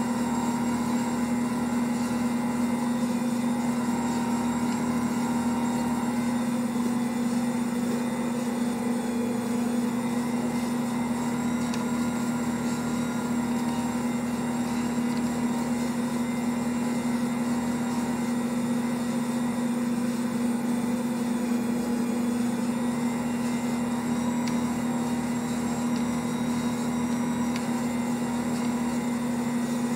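Ankarsrum Assistent stand mixer running steadily with its dough hook kneading bread dough in the turning stainless bowl: an even motor hum with no change in speed.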